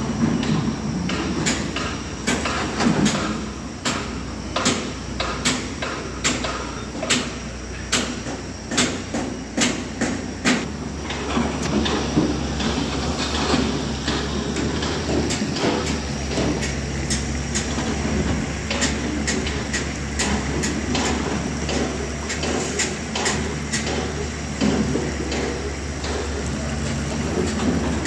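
Heavy diesel machinery running steadily, with sharp rhythmic clicking about twice a second over the engine hum.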